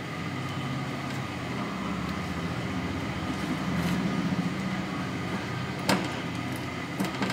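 Silicone spatula stirring thin blended lentil daal in a metal pan, over a steady low hum; a sharp tap on the pan about six seconds in.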